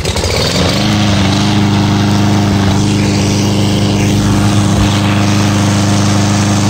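Walk-behind petrol lawn mower engine rising in pitch over the first second as it comes up to speed, then running steadily at full throttle.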